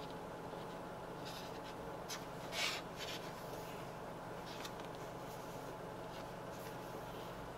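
Cotton-gloved hands turning a page of a stone-paper sketchbook and brushing over the paper: a handful of soft rustles and rubs, the loudest a page flip a little under three seconds in, over a steady low hum.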